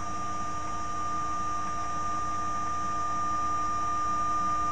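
Stepper motors of a homebuilt CNC machine driving the gantry along its axis at a steady speed: a steady whine made of several fixed tones.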